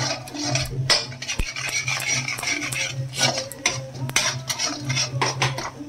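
A metal slotted spoon scraping and clinking against a metal kadhai, stirring spice masala roasting in oil, in quick irregular strokes over a steady low hum.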